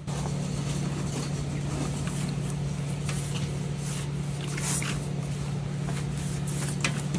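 A trigger spray bottle of surface cleaner gives one short squirt about four and a half seconds in, while a microfiber cloth wipes across a hard tabletop. A steady low hum runs underneath.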